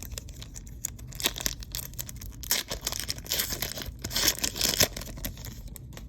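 A trading card pack wrapper being torn open and crinkled by hand, in several short bursts of tearing and rustling. The wrapper is a Panini Haunted Hoops basketball card pack.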